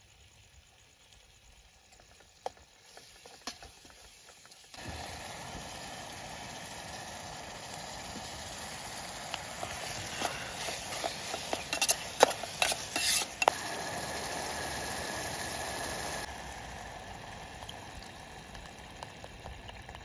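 Vegetable masala sizzling in a camping pot, starting suddenly about five seconds in. A metal spoon scrapes and knocks against the pot several times while it is stirred, and the sizzle eases off near the end.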